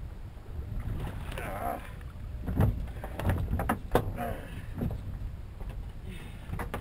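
A fish being gaffed and hauled over the gunwale into a small open boat: several sharp knocks against the hull, the loudest about two and a half and four seconds in, over a steady low rumble of wind on the microphone.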